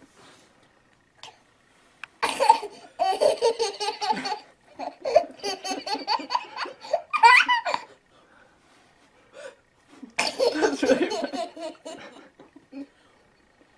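Baby laughing hysterically in three long bursts, starting about two seconds in, about five seconds in and about ten seconds in, with a high squeal in the middle burst.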